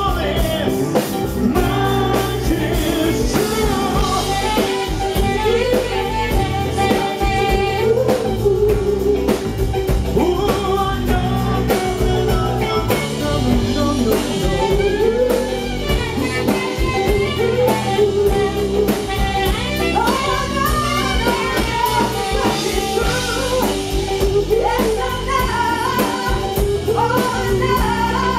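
Live band playing a slow ballad, amplified through a PA: a man sings lead over electric guitar, bass and drums.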